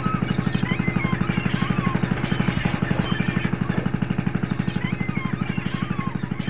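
Fishing trawler's diesel engine running with a steady low throb, about a dozen beats a second, with short high chirps over it.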